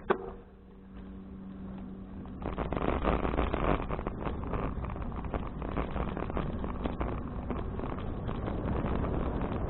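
A sharp click at the start, then wind rush and riding noise on a bicycle-mounted action camera's microphone. It swells from about two and a half seconds in as the bicycle gets moving and covers a steady low hum that was there before.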